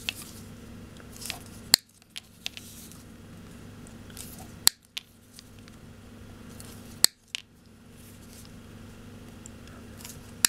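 Side cutters snipping a thin white plastic tube into short tags: about five sharp snips, each a couple of seconds apart, over a steady low hum.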